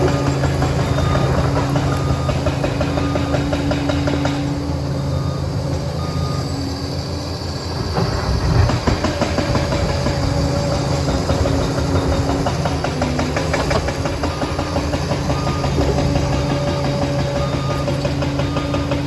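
Liebherr 746 crawler dozer's diesel engine running steadily under work, with its reversing alarm beeping in short even pulses during the first few seconds and again near the end. About halfway through the engine note dips and a short run of heavy knocks and clatter comes through.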